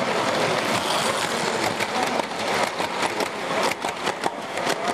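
0 gauge tinplate model train running over tinplate track as its coaches pass close by, with a rapid rattle and many sharp clicks from the wheels on the track, thickest from about two seconds in.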